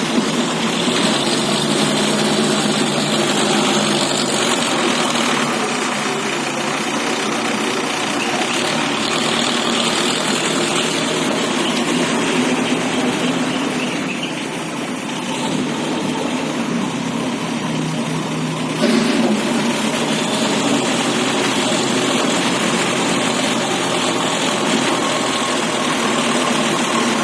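Diesel engine of an ACE backhoe loader running while it works, its note shifting as the load changes: it eases off about halfway through, then picks up sharply a few seconds later.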